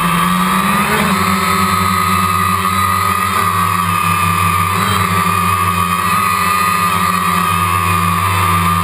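DJI Phantom quadcopter's electric motors and propellers buzzing steadily, picked up by the GoPro riding on it inside its waterproof case. The pitch shifts about a second in, then holds steady.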